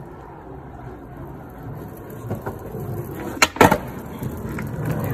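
Skateboard wheels rolling on rough asphalt, growing louder as the board comes closer, then two sharp clacks close together about three and a half seconds in: the tail popping and the board landing in a small beginner's ollie.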